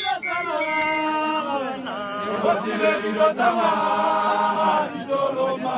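A group of Botswana Defence Force soldiers singing together, a chant-like choral song of many voices holding notes and sliding between them.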